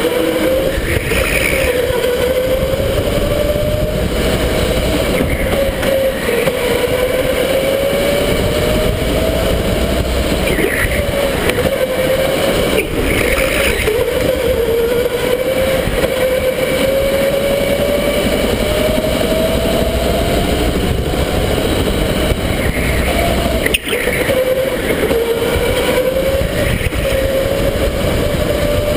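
Electric go-kart motor whining, its pitch climbing slowly as the kart gathers speed and dropping back again and again, over a steady low rumble. Two sharp knocks, one about halfway through and one near the end.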